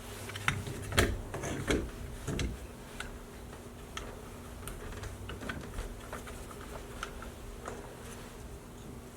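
Several knocks and rattling clicks in the first two and a half seconds, the loudest about a second in, then scattered light ticks, over a steady low hum.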